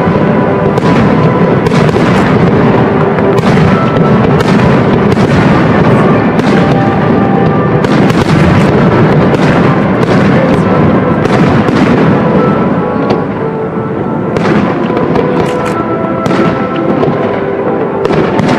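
Aerial firework shells bursting in a rapid, continuous series of bangs, with music playing throughout.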